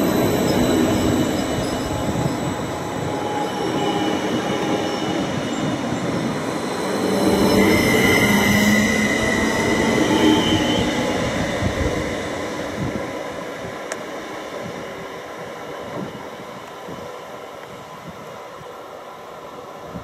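ODEG Stadler KISS double-deck electric multiple unit pulling out of the station past the platform: wheel and running noise with a whine from the electric drive. It fades steadily over the last several seconds as the train moves away.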